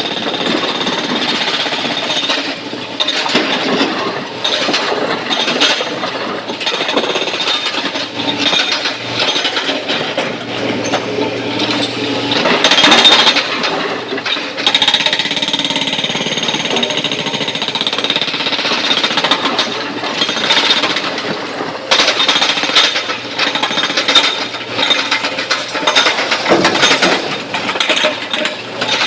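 SANY crawler excavator's steel bucket digging and scraping through broken quarry rock, with a continuous hard rattle and grinding of stone on steel and rocks knocking together.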